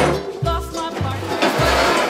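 Upbeat background music with a steady bass beat of about two notes a second under a bright melody.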